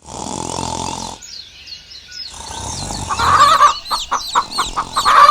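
Chickens clucking in a loud run of short repeated calls, with small birds chirping. A low steady sound opens the first second.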